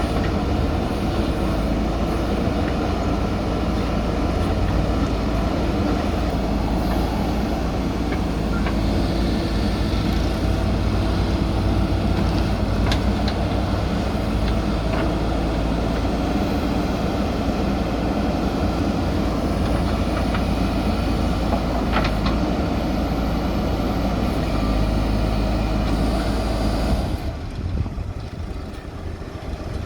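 Backhoe loader's diesel engine running steadily under work, with a few short metallic clanks. The engine sound drops away abruptly near the end, then comes back.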